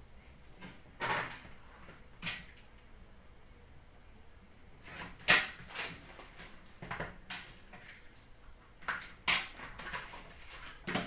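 Trading-card boxes and cards being handled on a glass display counter: a scatter of sharp taps and rustles. The loudest comes about five seconds in, with another cluster around nine seconds.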